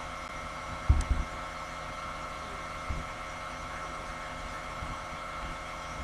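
Steady background hum and hiss with a few faint steady tones, the room and electrical noise of a recording microphone, broken by two low thumps about a second in.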